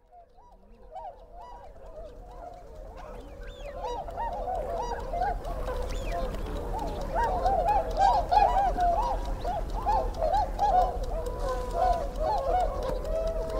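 A dense chorus of short rising-and-falling bird calls from many birds at once, fading in over the first few seconds, over a steady low hum.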